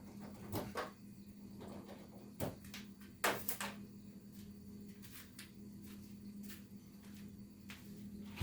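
A few light knocks and handling noises over a steady low hum.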